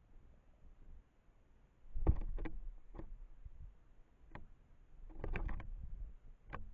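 Irregular knocks and taps on a bird feeder, as birds land and peck at it: a pair about two seconds in, single taps after that, a quick cluster of taps a little past halfway, and one more near the end.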